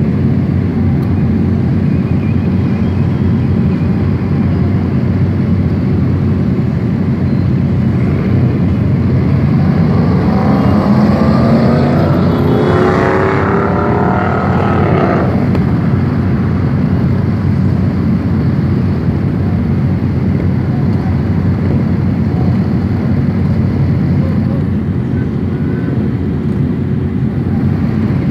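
A group of motorcycle engines rumbling steadily, heard from inside a car. Around ten to fifteen seconds in, the engines rev up in a rising pitch, then settle back.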